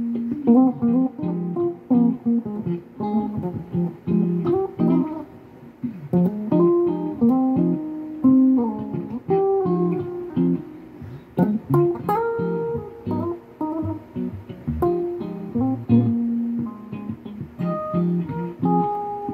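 Stratocaster-style electric guitar improvising a single-note lead line of quick runs, held notes and a slide up about twelve seconds in, over a looped guitar backing.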